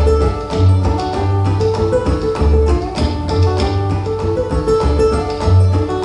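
Instrumental duet of ukulele and cello: quick plucked ukulele notes over long bowed low cello notes.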